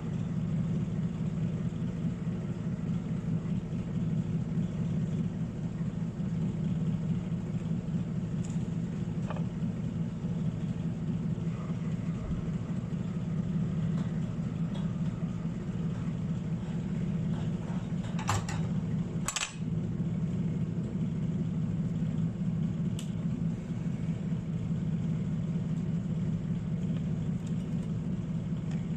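Steady low mechanical hum with evenly stacked overtones, broken by a couple of sharp clicks about two-thirds of the way through.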